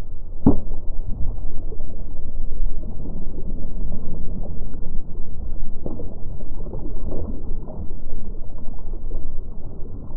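Steady low rumble of wind and water noise on the camera microphone as a kayak rocks in choppy water, with a sharp knock about half a second in and a few fainter knocks and splashes later.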